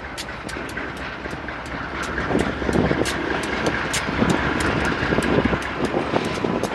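Train passing, its wheels clicking rapidly over the rail joints, with a faint steady high tone through the middle.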